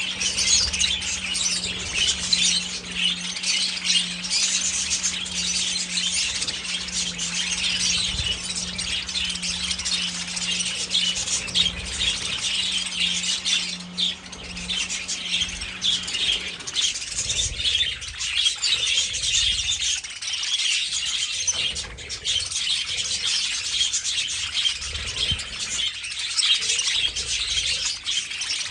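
A large flock of budgerigars chirping and chattering continuously, many birds calling over one another at once.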